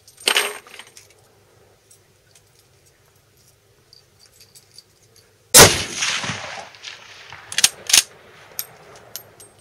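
A Swiss Schmidt-Rubin straight-pull carbine in 7.5x55 fired once from prone: a loud, sudden shot about five and a half seconds in that rings out for over a second. About two seconds later come two sharp metallic clacks as the straight-pull bolt is worked back and forward, then a few small clicks. A quieter sharp bang comes right at the start.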